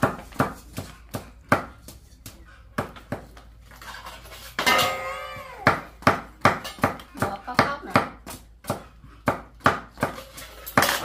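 Cleaver chopping cassava root on a wooden block, sharp chops at about two or three a second. A young child gives a short vocal sound about halfway through.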